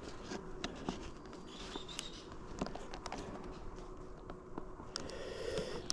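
Scattered light clicks and taps from hive frames and parts being handled during a hive inspection, over a faint background.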